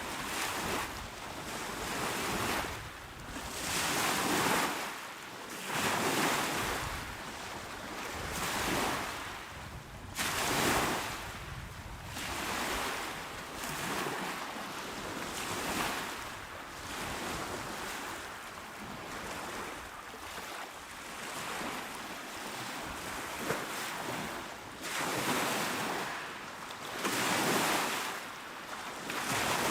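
Small sea waves washing onto a shore, the rush of water swelling and fading every two to three seconds.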